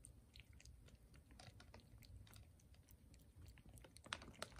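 Faint licking by a cat lapping a creamy treat off a plastic spoon: soft, irregular wet tongue clicks.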